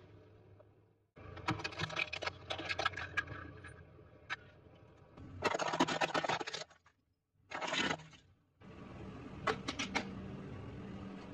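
Objects being run over and crushed under a car tyre: bursts of crackling, cracking and crunching, in several short clips that cut off suddenly. The loudest burst is a dense crunch just before the middle, and under the last clip there is a steady low hum with a few sharp cracks.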